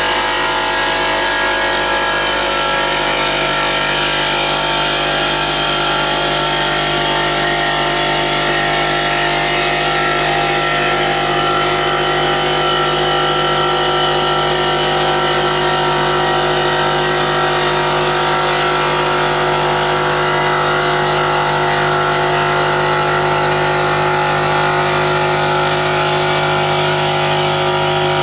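CNC stone polishing machine running steadily: a constant mechanical hum of several steady tones with an even hiss over it, unchanging throughout.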